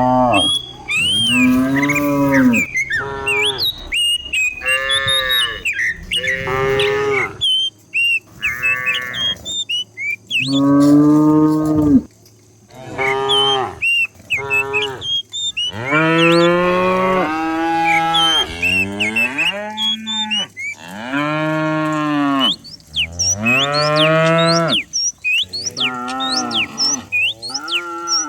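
A herd of cattle mooing, one drawn-out call after another, with several cows calling over each other at times.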